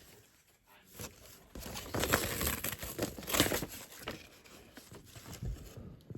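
Wrapping paper being torn and crinkled as a wrapped book is unwrapped by hand, in irregular rustling bursts, the loudest about two and three and a half seconds in, then quieter handling.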